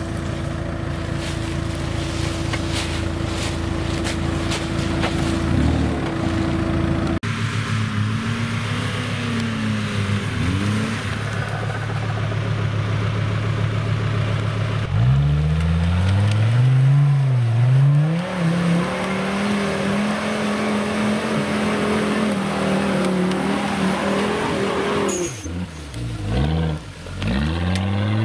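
Engines of modified off-road 4x4s running hard, the note rising and falling in repeated revs, with sudden switches from one vehicle's engine to another's.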